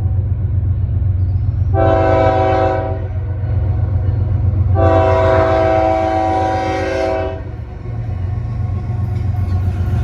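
A BNSF diesel locomotive's air horn sounds a short blast about two seconds in, then a longer blast from about five to seven seconds. Under it runs the steady low rumble of the passing freight train.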